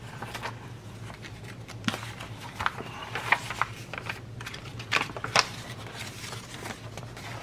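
Paper rustling as the pages of a handmade paper journal are turned and a folded paper piece is picked up, with a few sharp crinkles about three and five seconds in.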